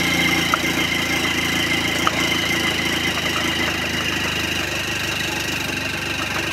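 Motorcycle engine running steadily as the bike rides along a road, with a constant hum.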